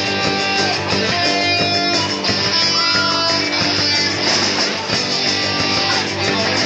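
A live band playing, with strummed guitars carrying the music.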